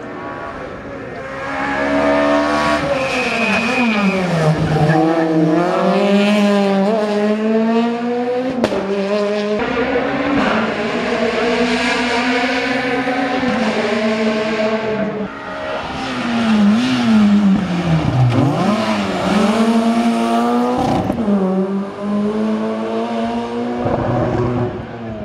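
Rally cars' engines run at full throttle on a stage, their pitch climbing and dropping again and again through gear changes and lifts for corners. The first pass is the Peugeot 208 R2B; after a short dip in the middle, a second car, the Citroen Saxo Group N, comes through the same way.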